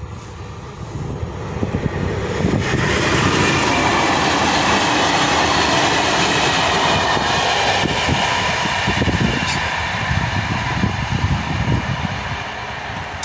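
Freight train of hopper wagons rolling past over the level crossing, the wheels clattering and the rumble building about a second in, staying loud for several seconds, then fading as the last wagons clear.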